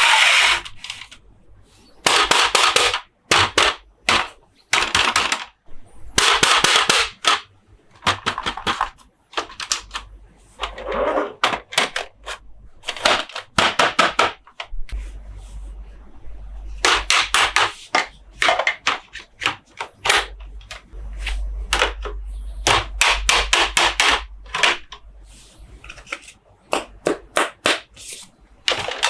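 Close-up hand handling of plastic toy trucks and packaging: clusters of sharp taps and clicks alternating with short bursts of scratching and rustling.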